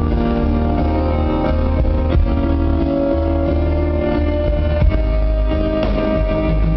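Live band playing a slow instrumental, with held string-like chords, keyboards and a heavy booming bass, heard from far back in a concert hall.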